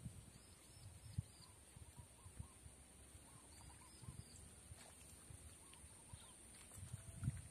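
Faint outdoor ambience: scattered soft bird chirps in small groups over a steady high hiss, with low bumps against the microphone, one sharper about a second in and a louder cluster near the end.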